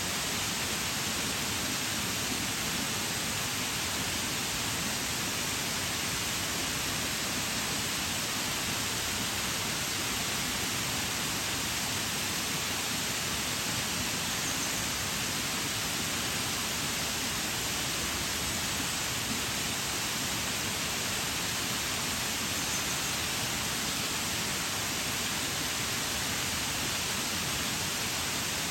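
Waterfall: water falling steadily onto rock and pool, an even hiss with little low end.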